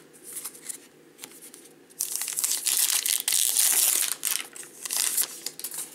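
A trading-card pack wrapper being torn open and crinkled. The crackling starts about two seconds in and lasts about three and a half seconds, after soft clicks and rustles of cards being handled.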